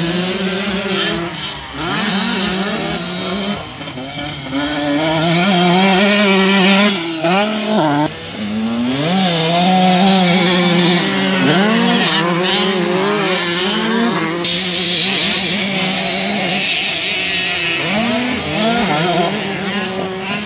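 Several motocross bikes, among them a KTM 125cc two-stroke, revving hard and backing off as they ride the track. Their engine notes rise and fall over and across one another, with brief dips in between.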